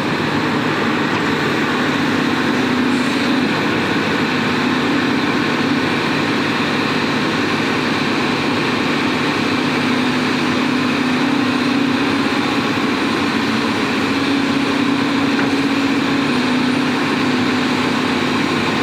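Sany excavator's diesel engine running steadily, its low hum swelling and easing slightly as the load changes.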